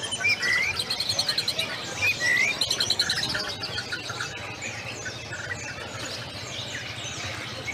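Many caged songbirds singing at once, a dense overlapping mix of chirps, whistles and rapid trills. It is louder for the first three seconds, then eases to a steady chorus.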